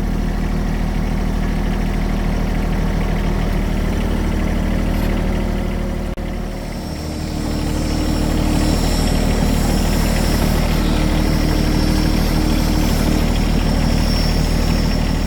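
Air compressor running steadily with a deep hum. About six seconds in it dips briefly, then runs louder with a higher tone added.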